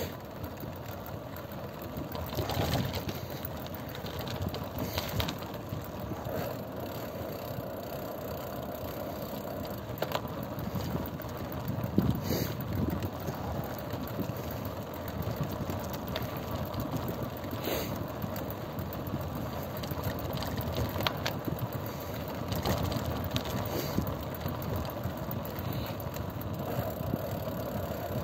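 Steady engine and road noise of a moving vehicle, with a few light knocks along the way.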